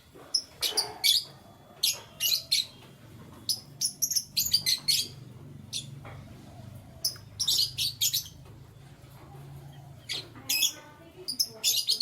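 Canaries chirping in quick clusters of short, high chirps, with pauses between the clusters. A faint, low, steady sound runs underneath for several seconds in the middle.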